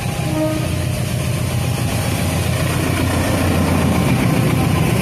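Diesel locomotive hauling a train of tank wagons past close by, its engine running loud and steady over the noise of the train on the track.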